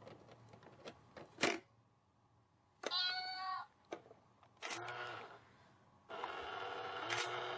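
Kitty coin bank toy playing its recorded meow several times, each one the same flat, unchanging pitch, with a few sharp plastic clicks from its lid and paw mechanism.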